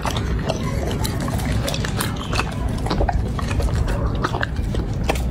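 Chocolate Labrador retriever eating raw meat from a dish: wet chewing and biting, with many quick clicks and smacks of teeth and tongue.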